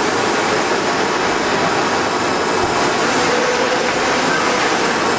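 TS2513 UV flatbed printer running as it prints: a steady, even rushing machine noise from the moving print carriage and the running machine.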